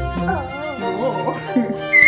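Background music: steady held tones with a wavering melody line over them.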